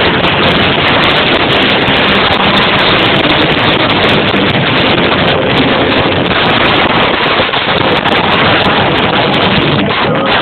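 Live rock band playing with electric guitars, recorded so loud that the sound is overloaded into a dense, distorted wash of noise. It thins briefly near the end.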